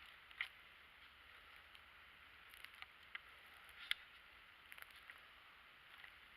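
Near silence, broken by scattered faint ticks and crackles, the loudest about four seconds in.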